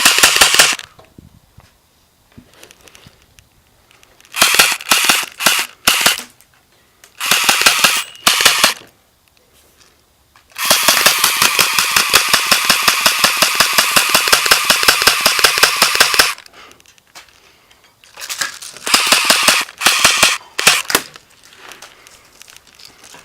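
Airsoft guns firing rapid automatic bursts: about five strings of fast, evenly spaced shots with short pauses between them, the longest burst lasting about six seconds in the middle.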